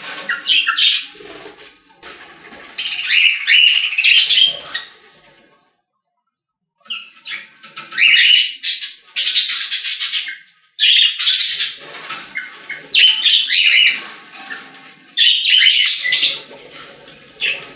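Birds squawking and chirping in loud, repeated bursts of high calls, broken by a sudden gap of total silence of about a second roughly six seconds in.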